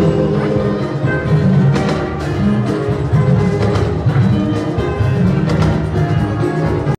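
Band music with drums and percussion, steady and full, cutting off suddenly at the end.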